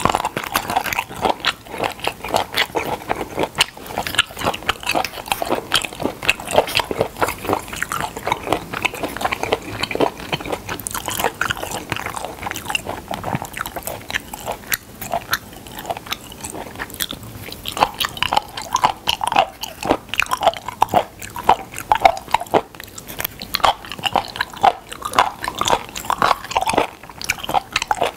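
Close-miked chewing of raw sliced spoon worm (gaebul), with a steady run of quick, wet, crunchy bites.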